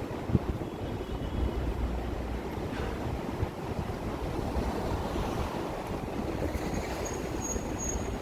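City street ambience: a steady low rumble of traffic with wind noise on the microphone, a single knock just after the start, and a few short high-pitched beeps near the end.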